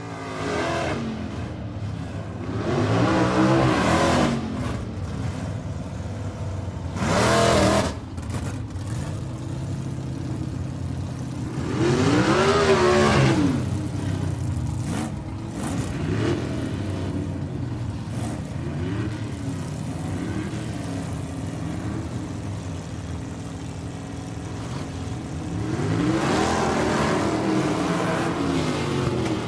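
Motorcycle engine running and being revved several times, the pitch rising and falling in long swells, with a short loud burst about seven seconds in.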